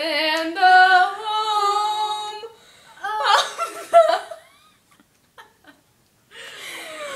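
A woman singing one long held note for about two and a half seconds, then a short burst of laughter from two women.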